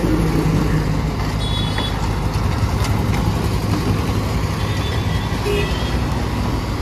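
Hyundai crawler excavator's diesel engine running steadily, with passing road traffic mixed in. A few brief, faint high-pitched beeps come about a second and a half in and again near the end.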